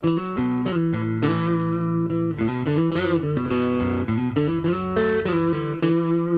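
Guitar music: a plucked guitar line over held bass notes, cutting in suddenly after a moment of silence.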